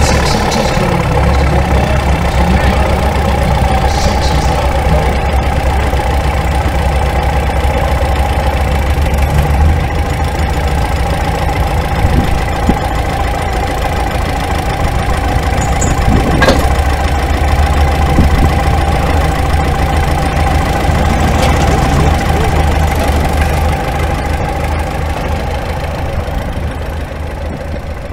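Antique farm tractor engine running steadily while hitched to a pulling sled. It fades over the last few seconds as the tractor moves off down the track.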